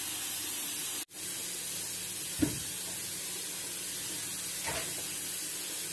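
Steady hiss with a soft knock about two and a half seconds in and a fainter one near five seconds; the hiss drops out for an instant about a second in.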